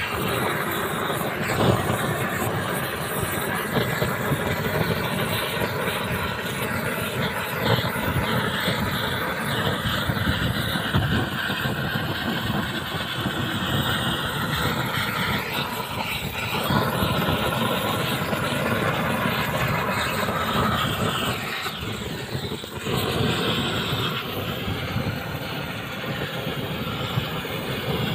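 Gas roofing torch burning steadily as its flame heats and melts the overlap seam of a torch-on bitumen waterproofing membrane.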